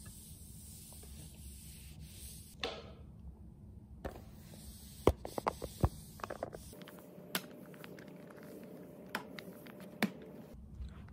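Flat floor mop with a cloth sheet swishing across a hard floor under a sofa, with a run of short sharp knocks and clicks, the loudest about five to six seconds in, as the mop head works around the sofa legs.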